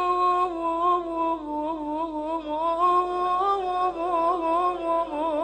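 A man's voice chanting a mournful Shia lament (nai). A long held note gives way, about half a second in, to a wavering, ornamented melody that keeps turning up and down in pitch.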